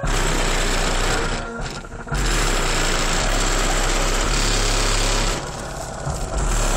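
Loud bass-heavy music from a truck's two 15-inch subwoofers, heard from outside the cab and distorting into a harsh buzz. It dips briefly about a second and a half in and again about five and a half seconds in.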